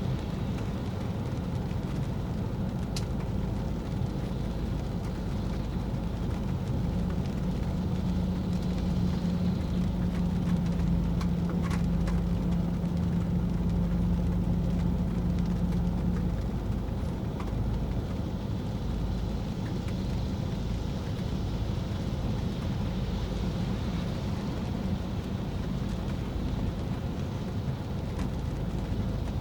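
Steady road and rain noise of a car driving on wet streets in the rain, a low rumble with a hiss of water. A steady low hum grows stronger from about seven seconds in and fades back about sixteen seconds in, with a few faint ticks.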